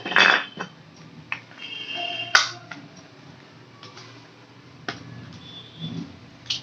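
A handful of sharp clicks and knocks from small hard objects being handled, the loudest near the start and about two and a half seconds in, with a brief high squeak-like tone just before the second.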